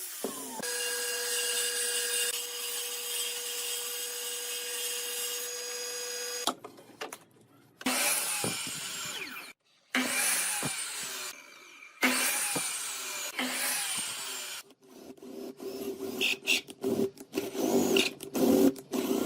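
Small power tools working wood. A motor runs steadily for about six seconds, then makes several short runs a couple of seconds apart, each winding down. Near the end come quick, choppy working noises.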